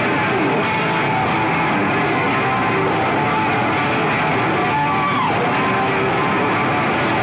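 Heavy metal band playing loud and steady, with electric guitar and drums; a note slides down in pitch about five seconds in.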